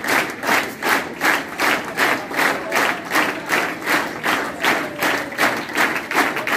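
A crowd clapping together in a steady rhythm, about two and a half claps a second.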